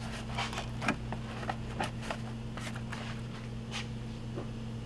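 Intake tube and its rubber coupler being handled and pushed onto a supercharger inlet: scattered light rubs, scrapes and clicks over a steady low hum.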